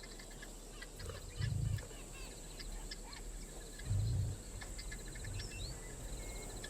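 Bush ambience: insects with a steady high buzz, and short bird chirps and clicks. Two low booms stand out about a second and a half and four seconds in.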